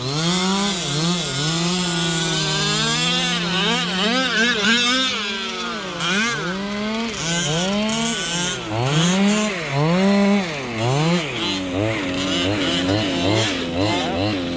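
Small two-stroke gas engines of 1/5-scale RC trucks revving up and falling off again and again as they race, the pitch sweeping up and down about once a second. Near the end the revs come as short quick throttle blips, about two a second.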